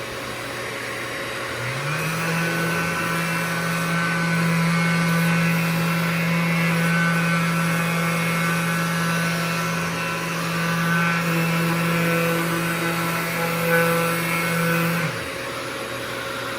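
Mirka 3x5-inch electric sander with 320-grit paper running against cured cabinet primer: it spins up about a second and a half in, runs at a steady pitch, and winds down near the end. A fainter steady hum runs underneath throughout.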